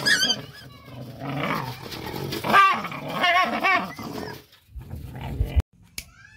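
Small puppies whining and yelping in short wavering cries, with some low growling as they play. A brief low rumble near the end cuts off abruptly.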